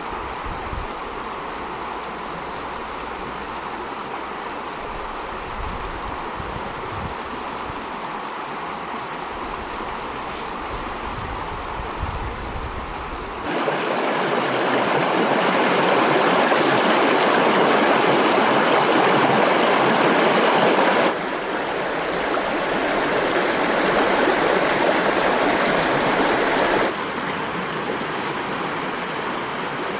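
Stream water flowing, a steady rush. It jumps sharply louder about halfway through, then drops back in two sudden steps near the end.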